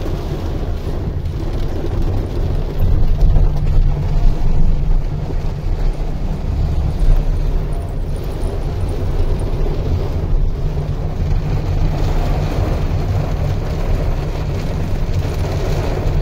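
Heavy rain drumming on a moving car's roof and windscreen, heard from inside the cabin, over a steady low rumble of road and engine noise; it swells a little louder a few seconds in.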